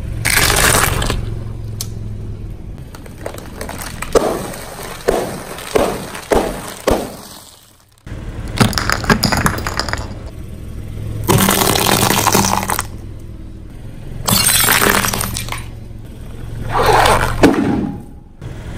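Car tyre rolling over and crushing things on concrete: crackling, popping and crunching as snack bags and plastic toys burst under the wheel, in several separate bursts with a run of sharp cracks about four to seven seconds in. A steady low hum of the car's engine runs underneath.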